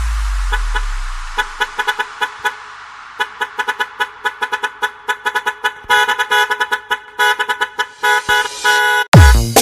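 A truck horn sample chopped into short rhythmic blasts as the breakdown of an electronic dance remix. A low bass note fades out at the start. The horn stutters grow faster and louder until heavy bass kicks drop in near the end.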